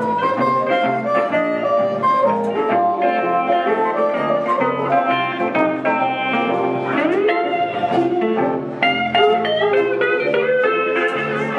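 Live blues band playing: a lead line on electric guitar with bent notes, over a repeating electric bass line and acoustic guitar, with harmonica in the band.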